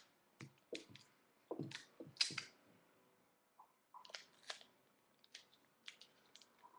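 Paper rustling and crinkling as a rolled paper tube is handled: scattered short crackles, the loudest cluster about two seconds in, with a quiet moment just after.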